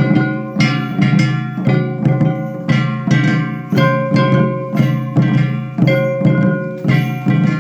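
Shishimai lion-dance accompaniment: a taiko drum and a ringing metal gong struck together in a steady rhythm of about two beats a second, each stroke ringing on until the next.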